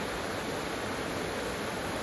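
Heavy downpour: a steady, even hiss of rain falling, without let-up.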